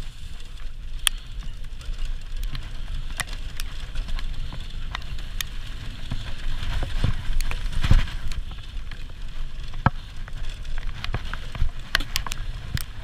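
Wheels of a metal dog-cart rig rolling over a dirt trail: a steady low rumble from the tyres and frame, broken by frequent sharp clicks and crackles of grit and leaves.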